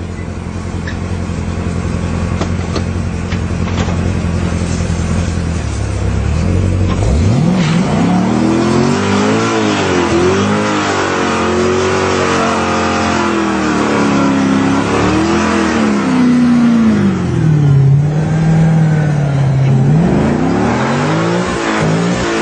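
Chevrolet Corvette Z06 V8 idling steadily, then revved hard about seven seconds in. Its pitch climbs, rises and falls repeatedly, settles lower for a few seconds and climbs again near the end, with a hiss underneath.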